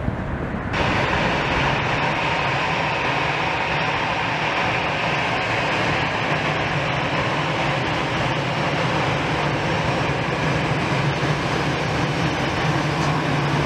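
Jet engines of a Czech Airlines Airbus A320-family airliner running at taxi power as it rolls across the apron: a steady roar and hiss with a low hum underneath that grows louder near the end, starting about a second in.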